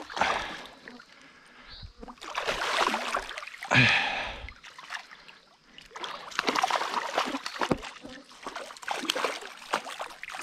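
A large hooked trout thrashing and splashing at the water's surface in repeated bursts while being played on a spinning rod.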